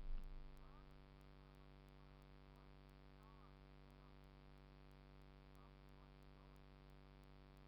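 Near silence with a faint steady hum; the truck's idling diesel engine dies away within the first second.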